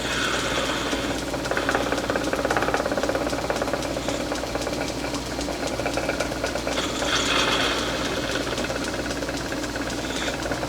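Metal lathe running steadily with a fast, even mechanical clatter as a cutting tool takes a dish-shaped cut in the end of a 3/16-inch drill. A higher cutting hiss swells near the start and again about seven seconds in.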